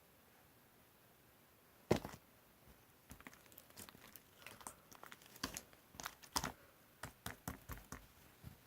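A sharp tap about two seconds in, then a run of irregular crinkling and clicking handling noises close to the microphone.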